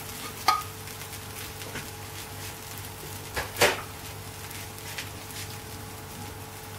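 Kitchen utensils knocking under a faint steady hiss: a light clink with a short ring about half a second in, then a louder, sharper clatter around three and a half seconds in.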